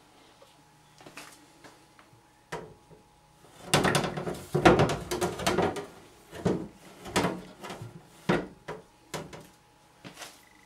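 Steel railway paraffin lamp being gripped by its handle and turned round on a sink's draining board: a knock, then a dense spell of metal knocking and scraping, then a few separate clunks about a second apart.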